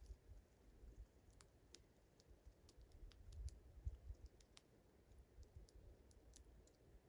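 Faint, irregular sharp clicks of a California ground squirrel gnawing food held in its paws, with a soft low rumble swelling around the middle.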